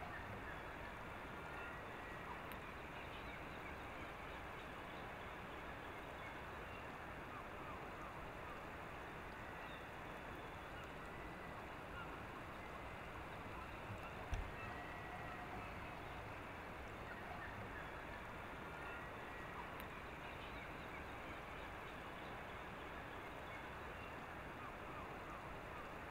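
Steady rushing hiss with faint, short calls of distant birds now and then, and one dull thump about fourteen seconds in.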